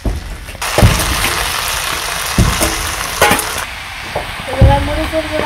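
Food sizzling in a hot cooking pot, with several sharp knocks of a utensil against the pot. The sizzle starts suddenly just under a second in and cuts off about three seconds later.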